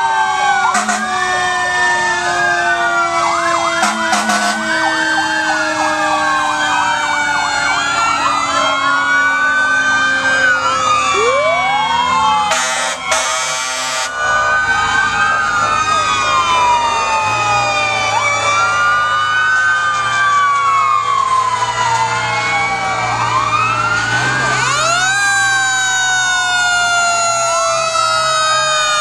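Several emergency-vehicle sirens wailing at once, their rising and falling tones overlapping, with one long tone slowly falling in pitch. A short loud burst of noise comes near the middle, and another siren sweeps up near the end.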